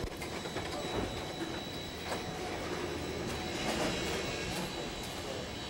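Workshop background noise: a steady mechanical din with scattered clicks and knocks.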